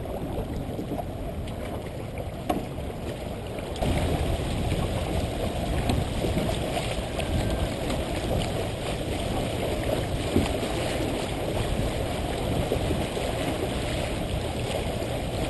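Water rushing and splashing along a sailboat's hull as it sails through chop, with wind noise on the microphone; it grows louder about four seconds in.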